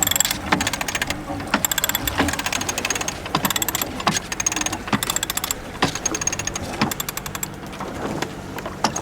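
Sailboat winch ratcheting, its pawls clicking in quick runs turn after turn, as the line is winched in to furl the genoa.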